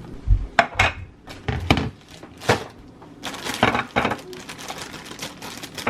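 Handling noises: a string of sharp clicks and knocks, with a stretch of rustling about three and a half seconds in.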